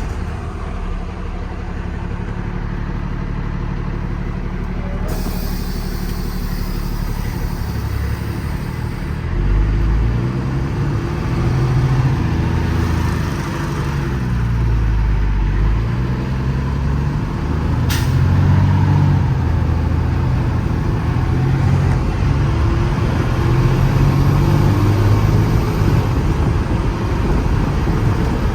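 Paccar PX-9 8.9-litre inline-six diesel of a Kenworth T370 pulling away under load, its pitch climbing and dropping back several times as the Allison automatic shifts up. A hiss lasts a few seconds about five seconds in, and there is a single sharp click later on.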